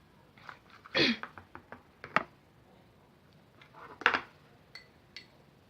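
Scattered taps, knocks and light clinks of containers and a stirring utensil being handled on a table while slime ingredients are added, with a short sliding sound falling in pitch about a second in and a louder knock about four seconds in.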